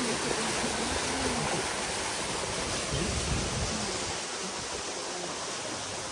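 Small bush stream rushing and splashing over rocks in a steady hiss of running water, a little fainter after about four seconds.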